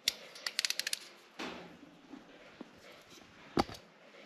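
Ratcheting wire crimper clicking quickly about half a dozen times as it closes on a plug-wire terminal. This is followed by a rustle and, near the end, a single loud clunk.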